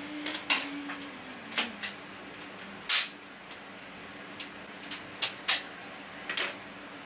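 Sharp wooden knocks and clacks from a cheap base cabinet's wooden frame being worked loose with a hand tool during demolition. About nine hits come in an irregular string, the loudest about three seconds in.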